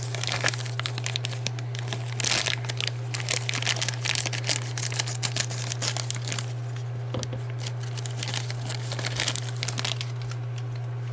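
Miniature booster-pack packaging crinkling and crackling as a figure is handled and worked out of its wrapping. The irregular rapid crackles run most of the way and die down near the end, over a steady low electrical hum.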